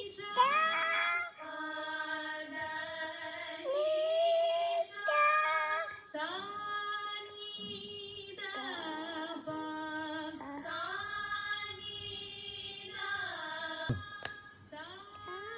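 A small child singing the sargam syllables sa re ga ma in held notes that slide up into pitch, her voice carrying a cold and cough. A lower steady note holds beneath much of the singing.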